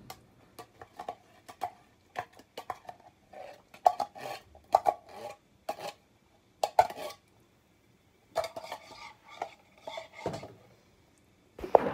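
A spoon clinking and scraping against cookware in short, irregular strokes, with a couple of brief pauses.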